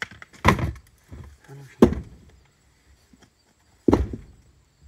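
Three heavy thuds of rocks being set down in the cargo area of an SUV, the last near the end. The rocks are being loaded as ballast to weigh down the rear for traction.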